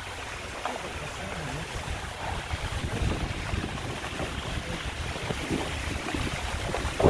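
Running rainwater rushing steadily, with wind gusting on the microphone as low rumbles that grow stronger after about two and a half seconds.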